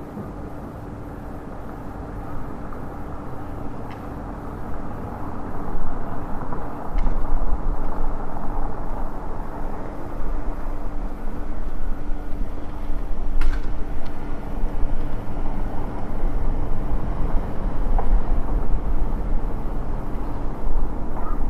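Street traffic with a motor vehicle's engine running close by, with a steady hum. The sound swells over the first several seconds, and a deep rumble sets in about a third of the way through. A few sharp clicks stand out above it.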